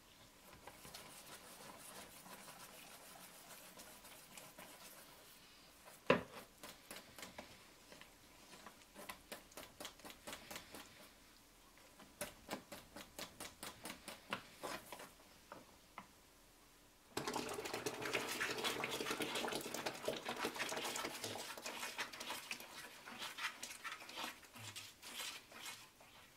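Flour and water being mixed in a stainless steel bowl. First water pours onto the flour under light stirring, with one sharp knock of the stirrer on the bowl about six seconds in. Then come rhythmic stirring strokes, about three a second, and from about seventeen seconds faster, louder stirring of the wet, smooth batter.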